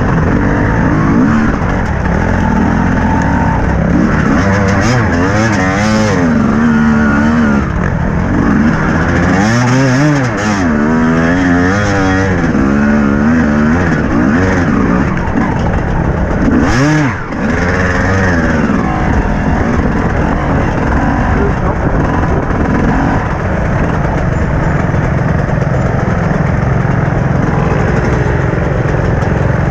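TM 250 dirt bike engine heard onboard, revving up and down as the bike is ridden along a trail. Its pitch climbs and falls sharply several times, with a quick throttle-off dip and re-rev a little past halfway.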